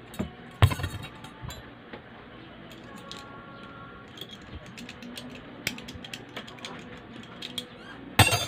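Metal clicks and clacks of a homemade stainless-steel speargun reverse trigger mechanism being worked by hand: a loud sharp clack about half a second in, light ticks through the middle, and a quick burst of clatter near the end.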